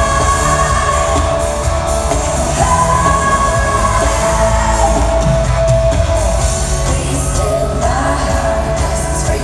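Live pop concert music: held sung notes over a loud band with heavy bass.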